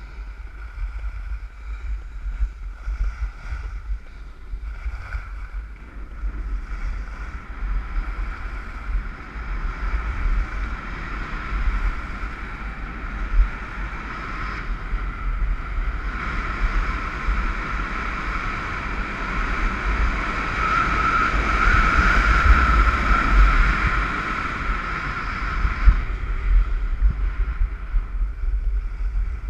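Wind buffeting the microphone while sliding downhill on snow, with a steady hiss of snow passing under the rider. The hiss grows louder for a stretch past the middle, then eases off.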